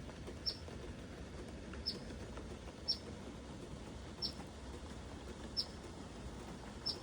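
Eastern Phoebes giving short, high single peeps, six of them spaced a little more than a second apart.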